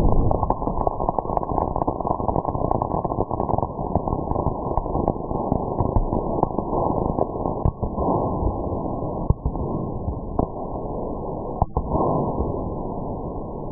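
Firework burning on the ground, the tipped-over tube spraying sparks and crackling stars across the grass: a dense, rapid crackle over a steady hiss that slowly dies down, with a few sharper pops in the second half.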